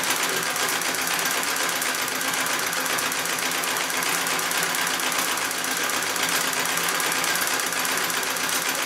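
Singer 66 treadle sewing machine stitching steadily without a pause, a fast, even chatter of the needle and shuttle mechanism as a quilt is free-motion quilted under the foot.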